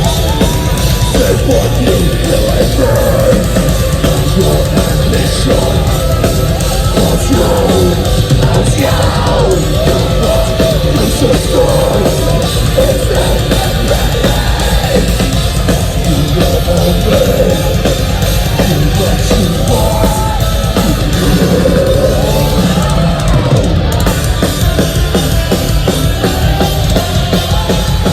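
Metalcore band playing loud and without pause: distorted guitars over dense, driving drums.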